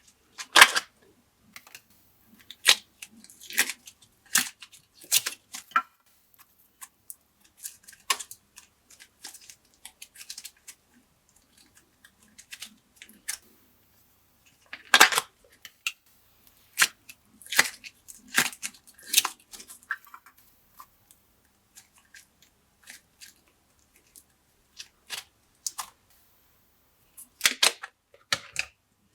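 Glossy slime being pressed, folded and stretched by hand, giving irregular sharp pops and clicks from trapped air, with quieter crackling in between. The loudest pops come about a second in and again about halfway.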